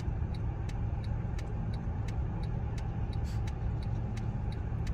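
Steady low rumble of a running vehicle, with a light tick repeating about three times a second.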